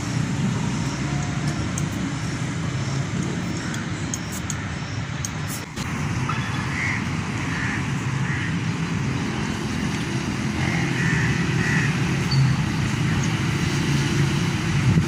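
Steady low outdoor background rumble, with a few faint short higher-pitched sounds in the second half.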